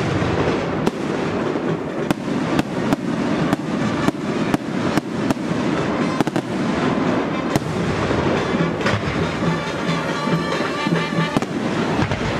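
Fireworks display: a continuous rumble of aerial shells bursting, with many sharp bangs in irregular succession. Music becomes audible alongside the bursts in the latter part.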